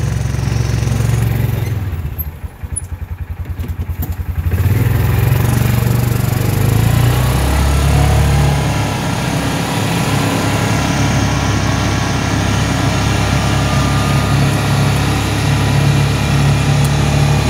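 Yamaha Rhino side-by-side's engine running as it drives along. About two seconds in it drops to idle, its separate firing beats audible at about ten a second, then picks up again near five seconds in and runs steadily on.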